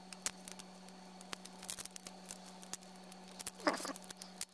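Faint scattered clicks and scratches of hands handling a small plastic tool part over a steady low hum.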